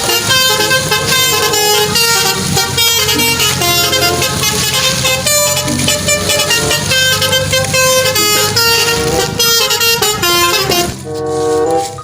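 Busy road traffic with many vehicle horns honking, overlapping at different pitches. The sound changes abruptly near the end.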